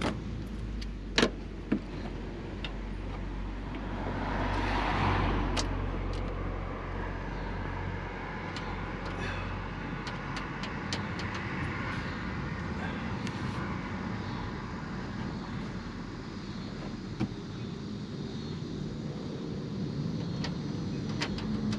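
A steady low hum with a vehicle passing by, its noise swelling and fading about four to six seconds in. Two sharp knocks about a second apart near the start and scattered small ticks, typical of parts being handled.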